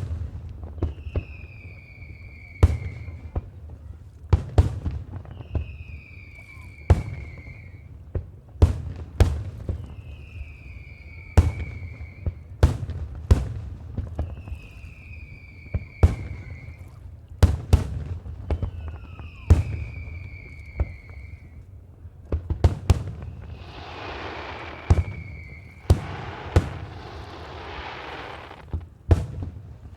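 Fireworks display: repeated sharp bangs of bursting shells, with a falling whistle every two seconds or so through the first twenty seconds. Near the end there is a loud hiss of about four seconds.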